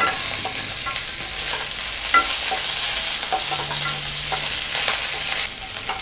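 A tempering of mustard seeds, chana dal, cumin, green chillies and curry leaves frying in hot oil in a pan: a steady sizzle dotted with small crackles and pops, easing a little near the end.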